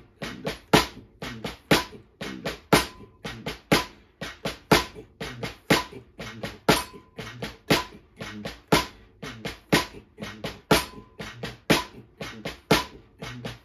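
Drumsticks on a practice pad playing a three-stroke roll exercise at a slow, steady tempo. Each beat is an accented stroke followed by two quieter, quicker strokes with the same hand, then the same with the other hand, about one accent a second.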